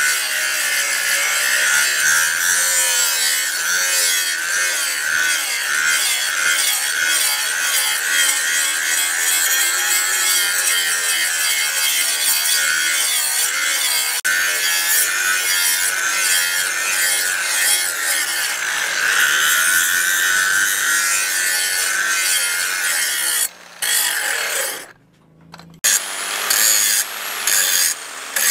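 Electric angle grinder with an abrasive disc grinding the steel blade of a billhook, a steady high rasping whine. Near the end it stops briefly and then comes back in short bursts.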